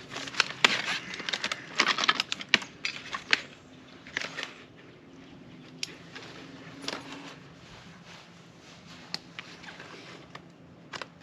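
Metal clicks and rattles from storm door closer hardware being handled and worked on: a quick run of clatter for the first few seconds, then occasional single clicks.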